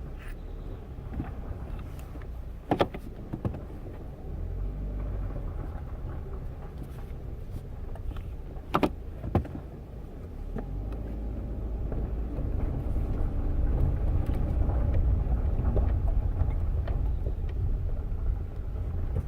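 Cabin sound of a 2017 Chevrolet Cruze being driven: a steady low engine and road rumble that grows louder about halfway through. A few sharp knocks come through, one early and two close together in the middle.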